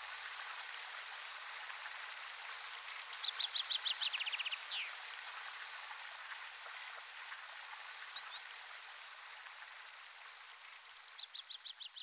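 Steady rush of running water with a small songbird singing a short song of quick repeated notes that drop in pitch and end in a downward slur, about three seconds in and again near the end, with a brief two-note call between. The water slowly fades near the end.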